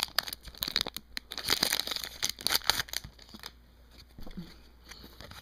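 Hockey card pack wrapper crinkling and tearing as it is opened. Dense crackling lasts about three seconds, then quieter handling of the cards follows.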